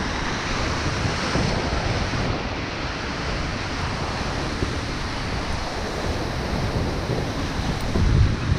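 Surf breaking and washing over the rocks of a jetty, a steady rushing wash, with wind buffeting the microphone in low rumbles that gust harder near the end.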